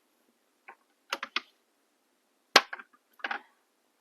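Small gel polish bottles handled and set down on a hard tabletop: a few short clicks and clacks, the sharpest about two and a half seconds in.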